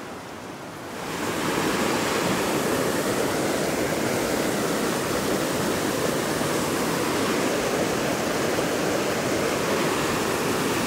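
Whitewater of a rocky mountain creek rushing over boulders in a steady loud roar, coming up about a second in from a quieter flow.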